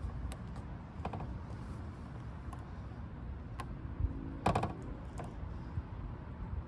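Hands working double-sided adhesive tape onto a car's trunk lid: scattered light clicks and taps, the loudest cluster about four and a half seconds in, over a low background rumble.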